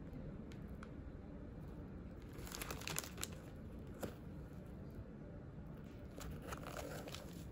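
Plastic packaging crinkling and rustling as hands handle a sneaker, in a few short clusters of crackles about two and a half seconds in, at four seconds, and again near the end.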